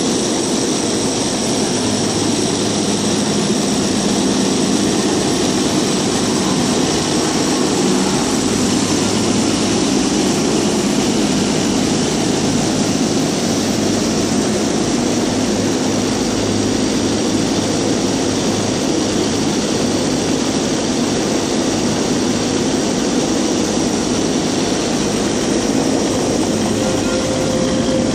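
Trieste–Opicina tram on its cable-hauled funicular section, approaching and passing slowly at close range. It makes a loud, steady mechanical whirring hum with a few held tones, and the level stays even the whole time.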